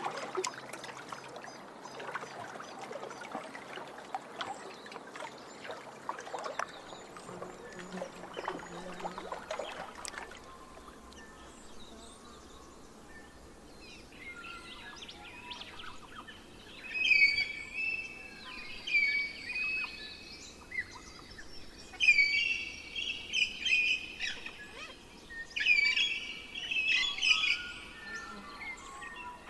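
Water splashing and lapping for the first ten seconds or so, then a songbird singing loud, repeated short phrases of clear notes, which begin about a third of the way in.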